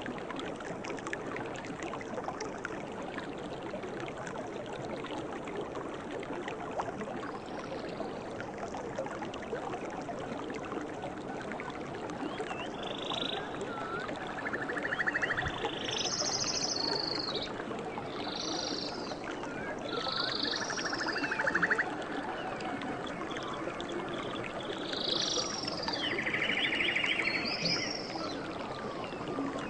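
Jungle animals calling over a steady hiss: short buzzy calls, some arching high and some lower, begin about twelve seconds in and repeat every second or two.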